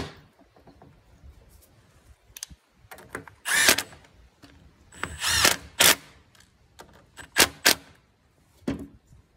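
Red Milwaukee Fuel cordless drill running in about six short bursts, running down the screws on a tractor hydraulic control valve cover. There is a sharp click just at the start.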